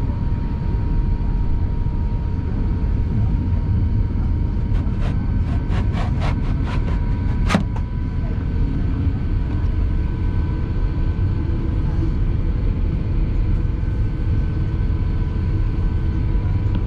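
Airbus A350-900 cabin while taxiing: a steady low rumble with the Rolls-Royce Trent XWB engines' even hum at low thrust. About five seconds in comes a quick run of clicks, the last and loudest a couple of seconds later.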